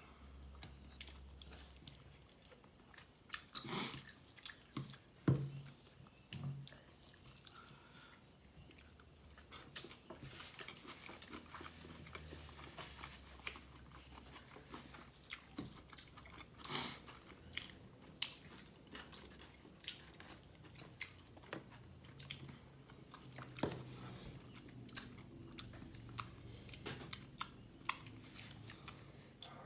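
Close-miked chewing and biting of beef tehari (biryani) with egg korma: wet mouth sounds with irregular sharp clicks and crunches, a few louder ones at about 4, 5 and 17 seconds in.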